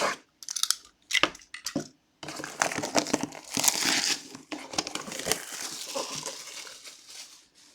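Plastic wrapping being torn off a sealed trading-card box and crumpled. A few sharp crackles come first, then a long stretch of continuous crinkling that dies away just before the end.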